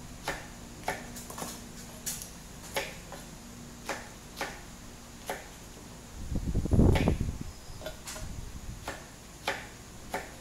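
Kitchen knife slicing okra on a wooden cutting board: sharp, irregular taps of the blade meeting the board, roughly one a second. About halfway through there is a louder, low thump lasting about a second.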